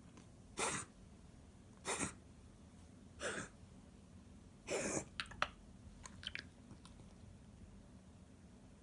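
Corgi reverse sneezing: four noisy gasping inhalations about a second and a half apart, the last one longer, followed by a few short clicks. The vet found mild throat inflammation behind the episodes.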